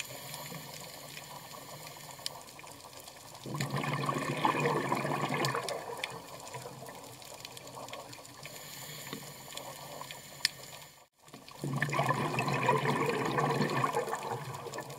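Underwater sound from scuba dive footage: a steady watery hiss with two rushing bursts of bubbles, each about two seconds long, one a few seconds in and one near the end.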